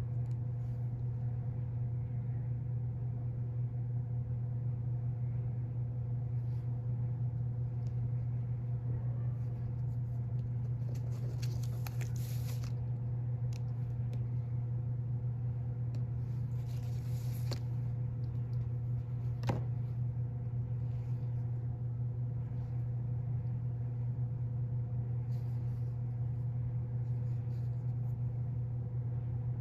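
A steady low hum throughout, with faint soft rustles and pats of hands pressing and smoothing wet clay coils on a plastic sheet, and one sharp click about two-thirds of the way through.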